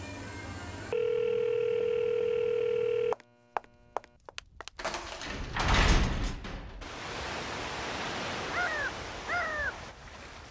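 Telephone dial tone, a single steady tone held for about two seconds and cut off abruptly, followed by a few clicks. Then a rush of noise and a steady hiss, with a bird calling twice near the end.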